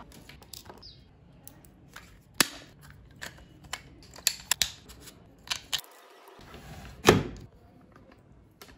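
Irregular plastic clicks and snaps of an action camera's clear waterproof housing being opened, latched and handled, with a cluster of quick clicks about four and a half seconds in and the loudest snap about seven seconds in.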